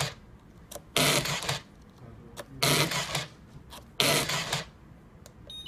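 Z-cut-9 electronic tape dispenser running its motor to feed out and cut a length of tape, three times, each run about half a second long and about one and a half seconds apart. A short electronic beep near the end.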